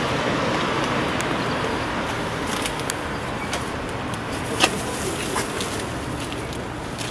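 Steady city street noise with traffic in the background. From about two and a half seconds in, paper and a plastic wrapper crinkle and crackle as they are picked up off the pavement, with one louder crackle near the middle.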